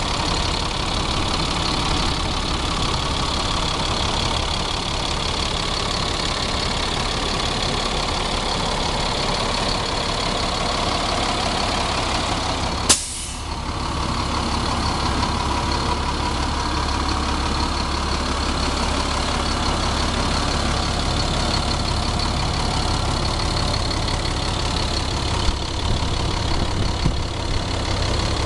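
2002 Chevrolet C8500 dump truck's diesel engine idling steadily, heard close up at the open engine bay. One sharp click about halfway through is followed by a brief dip in the sound.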